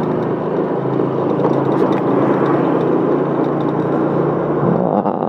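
Motorbike engine running steadily as it rides along at low speed.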